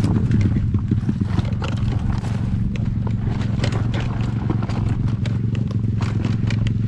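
Single-cylinder four-stroke pit bike engine running at low, steady revs while rolling down a rough, rutted dirt trail, with frequent clatter and knocks from the bike over the bumps.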